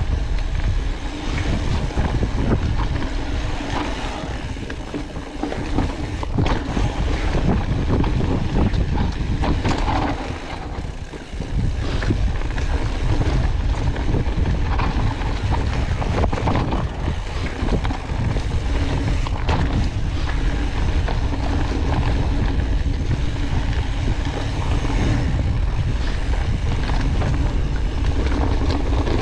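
Wind rushing over the microphone of a camera riding along on a mountain bike on a dirt singletrack, a heavy steady rumble with scattered knocks and rattles from the bike over rough ground. It drops off briefly about eleven seconds in.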